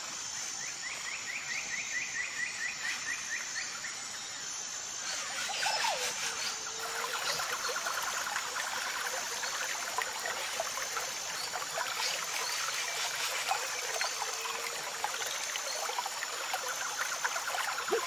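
Outdoor nature ambience: birds trilling and chirping over a steady hiss, with a high chirp repeating at an even pace throughout.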